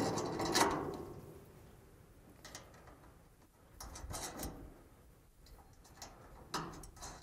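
Light metallic clicks and knocks from a header-height force sensor being handled and fitted onto a steel L bracket, coming in a few short clusters.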